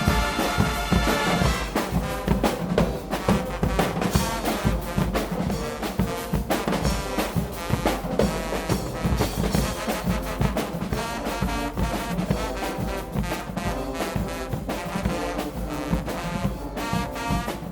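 Guggenmusik band playing loud brass music, trumpets and trombones over a steady drum beat. A chord is held for about the first second and a half before the tune moves on.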